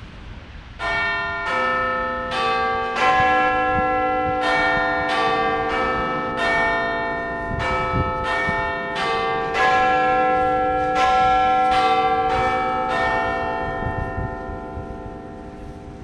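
Bells ringing a run of notes, about three strikes every two seconds, each note ringing on under the next. They start about a second in and die away near the end.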